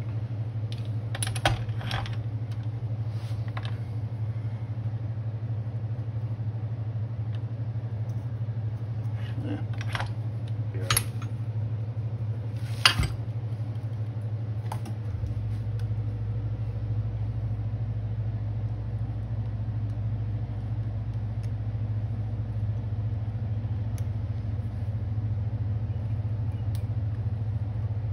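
Steady low machine hum in a cue-repair shop, with a few light clicks and clinks of small tools in the first half. About halfway a deeper low rumble joins the hum.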